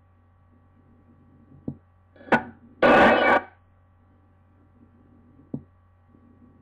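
Radio scanner on an old tape recording, between transmissions: a steady hum with faint tones under it, a couple of light clicks, and a short hiss of static about three seconds in, the loudest sound.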